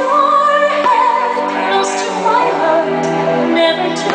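Fireworks-show soundtrack music: a woman singing held, wavering notes over orchestral accompaniment, with one sharp firework bang a little under a second in.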